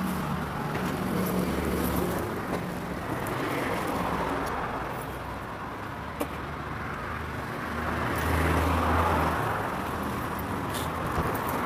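Street traffic: vehicle engines running with a steady low rumble that swells as a vehicle goes by about eight seconds in, and a single sharp click near the middle.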